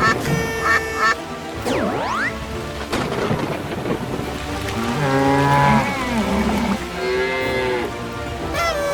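Cartoon rainstorm sound effects: steady heavy rain with thunder. Several short pitched calls sound over it, with a rising sweep about two seconds in and a longer, lower call about five seconds in.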